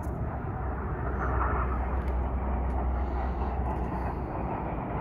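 Steady rumble of jet engines from a formation of display jets flying past, heavy in the deep lows.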